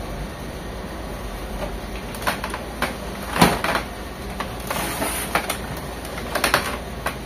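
Plastic clicks and knocks from an HP Officejet 7612 printer's right-side cover being pulled off and handled, the sharpest click about halfway through, with a brief scraping hiss just after it.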